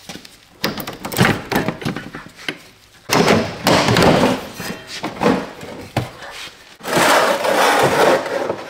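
Knocks and clunks of metal and plastic, then two long stretches of scraping and rattling, as the stock transmission cooler is unbolted, worked free from behind the bumper and set down into a plastic drain pan.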